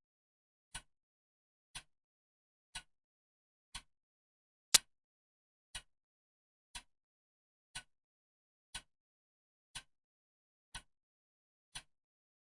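Clock ticking steadily once a second, each tick a short sharp click with silence between. One tick about five seconds in is much louder than the others.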